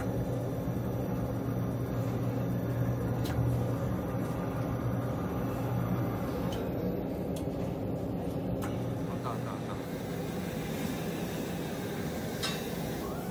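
Automated boat loader conveyor machinery running: a steady low hum with a few sharp clicks. After about nine seconds the hum gives way to a flatter, even hiss, with one more click near the end.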